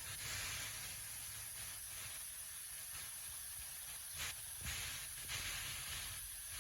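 A steady high hiss over a low rumble, with a few brief louder rustles in the second half.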